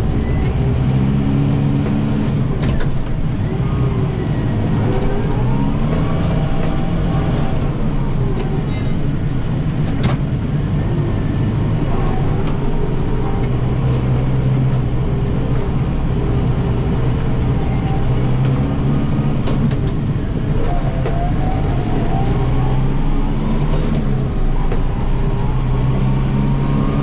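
Kubota 7060 tractor's diesel engine running steadily, its pitch rising and falling a few times as it works, with several sharp knocks scattered through.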